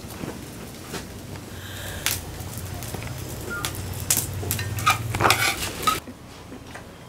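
Ceramic bowls, a metal pot and utensils clinking and knocking as food is handled at a wood-fired hearth, with a cluster of clinks a little past the middle, over a low steady hum. About six seconds in it drops to quieter ambience.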